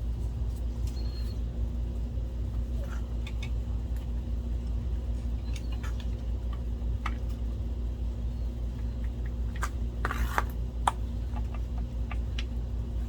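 Light clicks and taps of small metal parts and screws being handled, over a steady low hum, with a brief hiss about ten seconds in.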